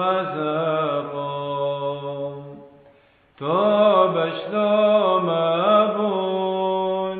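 A man's voice chanting a Syriac hymn unaccompanied, holding and ornamenting long notes. One phrase fades out about two and a half seconds in, and a new phrase begins about a second later.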